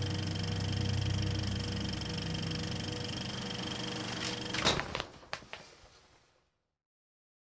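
A steady low drone with several high steady tones over it, cut off about four and a half seconds in by a sharp clack and a few lighter clicks, then dying away.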